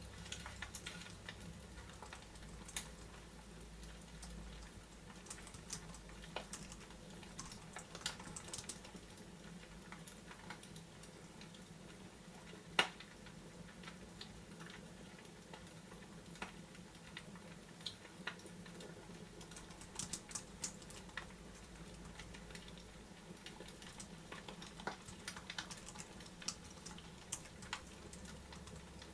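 Fireplace fire crackling: sparse, irregular sharp pops and clicks over a steady low hiss.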